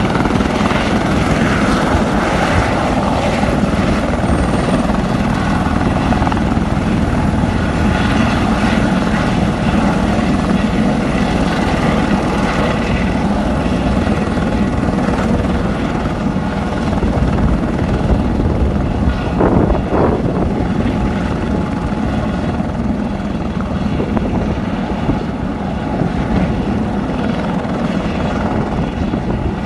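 A Eurocopter EC130 light helicopter runs at takeoff power: single turbine whine and rotor beat, steady and loud as it lifts off the apron and climbs away low. The sound eases a little toward the end as it moves off.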